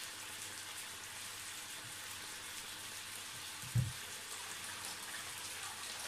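Pork belly sizzling in soy sauce and vinegar in a frying pan, a steady crackling hiss. A single dull thump comes about four seconds in.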